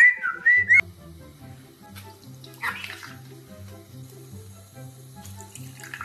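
A blue parrotlet whistling a few short rising and falling notes in the first second, followed by background music with a bouncy stepped bass line. Running tap water comes in near the end.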